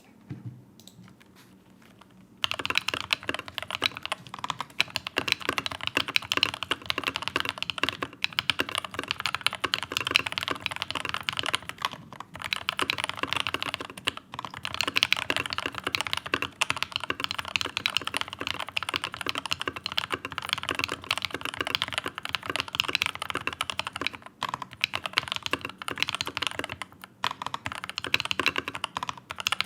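Typing on a Leopold FC660M mechanical keyboard fitted with lubed and filmed Turquoise Tealio linear switches: a dense, continuous run of keystrokes that starts about two seconds in and has a few short pauses.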